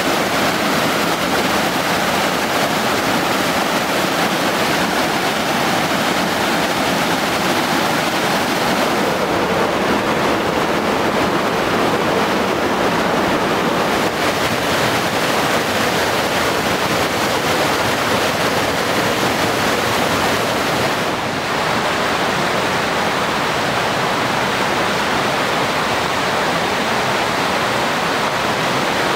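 Mountain stream rushing and cascading over boulders: a loud, steady white-water roar, its tone shifting slightly a couple of times.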